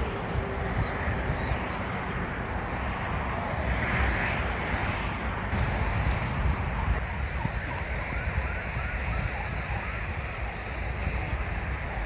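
Wind buffeting the microphone of a camera riding on a moving bicycle, a steady low rumbling rush. Faint short high chirps come through it in the second half.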